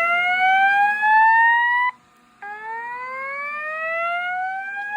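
Fire alarm speaker sounding a whoop evacuation tone, a loud pitch sweep rising steadily for about three and a half seconds. It cuts off about two seconds in, then after a brief gap starts low again and rises once more.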